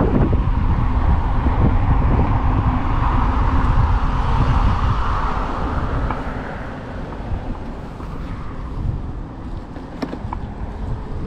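Wind rushing over the microphone and tyre noise from riding an electric unicycle on asphalt. It is louder in the first half and eases off in the second.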